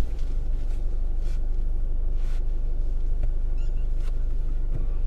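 Car engine idling, a steady low hum heard from inside the closed cabin, with a couple of faint rustles as a passenger settles into the seat.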